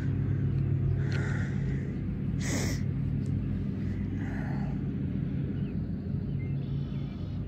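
A steady low hum throughout, with a few short, fainter higher sounds over it and a brief rustle about two and a half seconds in.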